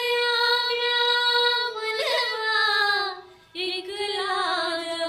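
A high-pitched voice singing two long, drawn-out phrases, with a short break about three seconds in.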